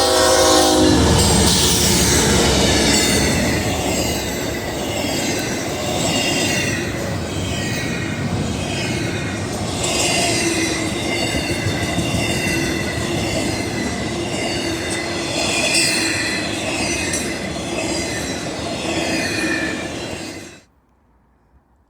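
Freight train passing close by: the end of a horn blast about a second in, then the steady rumble and repeated clatter and squeal of wheels rolling over the rails. It cuts off abruptly near the end.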